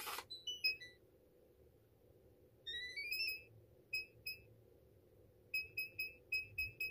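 Samsung SHS-1321 digital door lock's touch keypad. A click and a short jingle come at the start. About three seconds in, a rising chime sounds as the keypad wakes, followed by single key beeps and then a quick run of evenly spaced key-press beeps as an old code is keyed in to test the lock after a factory reset.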